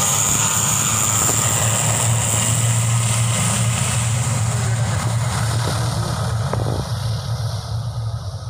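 ATR 72 twin-turboprop airliner on its take-off roll at take-off power: a loud, steady propeller drone with a strong low hum and a high engine hiss, easing off slowly in the second half as the aircraft moves away down the runway.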